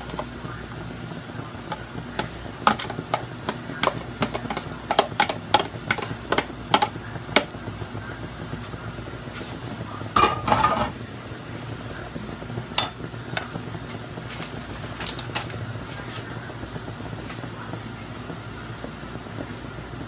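A spoon knocking and scraping vegetables out of a plastic bowl into a wok: a run of sharp clicks and knocks for the first several seconds, a short clatter about ten seconds in and one sharp knock a few seconds later, over a steady background hum.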